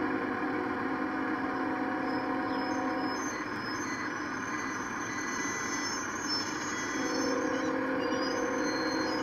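Street traffic with a steady engine hum from road vehicles. It grows louder about seven seconds in as a school bus drives up close.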